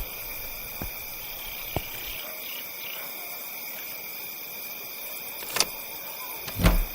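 A steady background hiss with a few short, sharp knocks: two about a second apart near the start, then a sharp click and, a second later, a heavier thump, the loudest sound.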